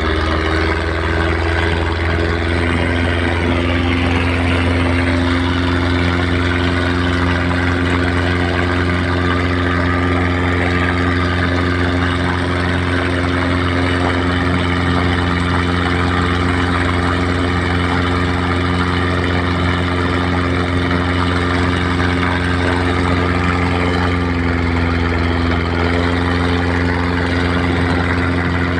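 Boat's Nissan TD27 four-cylinder diesel engine running flat out at a steady pitch, a loud unbroken drone over the rush of water and wind as the hull planes at speed.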